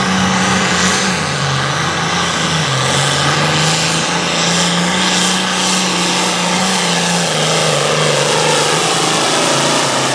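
John Deere hot farm pulling tractor's engine running hard at high revs under full load during a pull, a loud, steady drone whose pitch shifts a little up and down as it goes.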